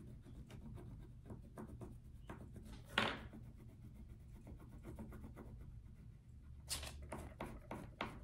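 A child colouring in a drawing on paper with quick back-and-forth scribbling strokes. One stroke about three seconds in is louder, and a quick run of strokes comes near the end.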